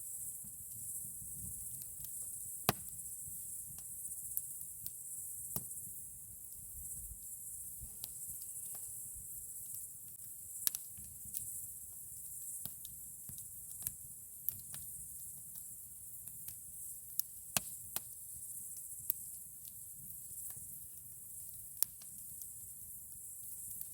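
Campfire wood crackling, with irregular sharp pops and snaps over a steady high hiss and a low rumble.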